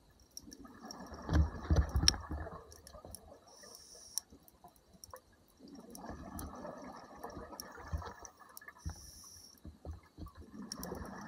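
Scuba regulator breathing, played back at double speed: three gurgling bursts of exhaled bubbles about five seconds apart, the first loudest, with a short high hiss of inhalation between them. Faint scattered clicks throughout.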